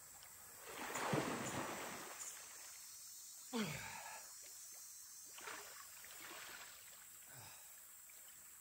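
A paddle swishing through shallow river water about a second in, then a short sigh falling in pitch a few seconds later, with two fainter ones near the middle and end. All of it is faint.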